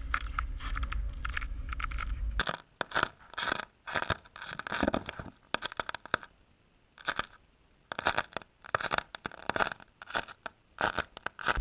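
Irregular crunching and scraping on lake ice in short bursts, roughly two a second, with brief silences between them. A low rumble sits under the first couple of seconds.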